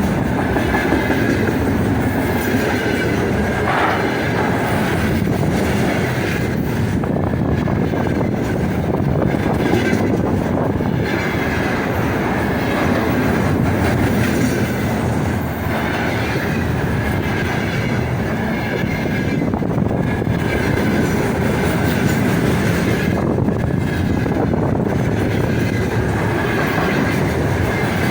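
Freight train wagons rolling past steadily, wheels clattering over the rails with a recurring thin high squeal from the wheels.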